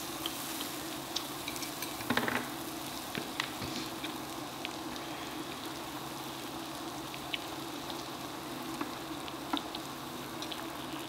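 Meat and onions sizzling on the domed grill plate of an electric hot pot-grill, a steady hiss with scattered pops and crackles, a short flurry of crackles about two seconds in.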